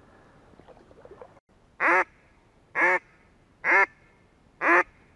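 Hand-held duck call blown by a hunter: four short, loud quacks, evenly spaced about a second apart.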